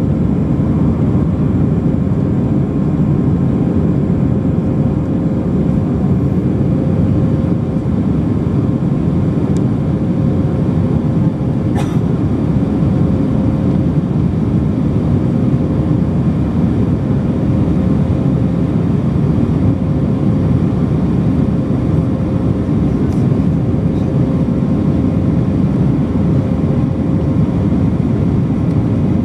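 Steady cabin roar of an Airbus A319-100 climbing after takeoff, heard inside the cabin from a window seat near the wing: jet engine and airflow noise with a faint steady hum. A faint click about 12 seconds in.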